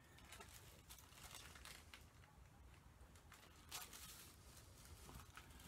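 Faint rustling of a paper pattern piece being handled and smoothed flat on a table, with the loudest rustle about four seconds in.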